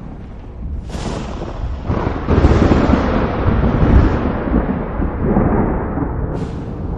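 Thunder: a sharp crack about a second in, then a heavy rolling rumble that swells to its loudest around the middle and slowly fades, with another crack near the end.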